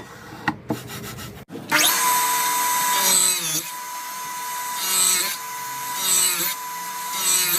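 Electric power tool working wood. A few clicks come first, then it starts up about a second and a half in and runs with a steady whine that swells and dips in pitch every second or two as it bites into the wood.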